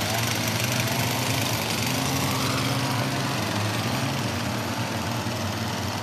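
A small engine running steadily, a continuous even drone with no change in speed.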